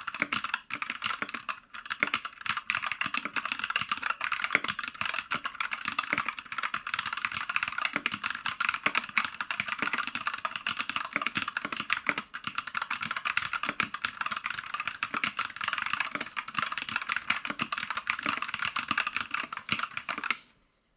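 Redragon Fizz K617 mechanical keyboard being typed on quickly and continuously, a dense clatter of key presses that stops abruptly near the end.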